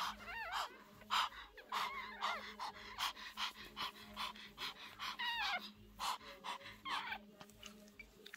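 Newborn Pomeranian puppy squeaking in several short, high, falling cries, over a dog's quick, rhythmic panting.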